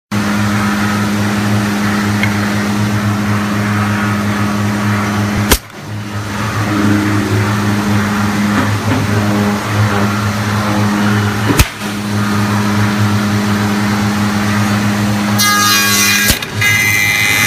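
Electric motors of an MD3110A CNC tenoning machine running with a steady hum. Two sharp clunks come about 6 s apart, and near the end a harsher, high-pitched noise joins the hum.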